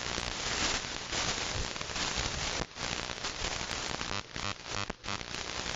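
Radio static from an SDR receiver's audio: an even hiss broken by a few brief dropouts, with the SDR computer misbehaving.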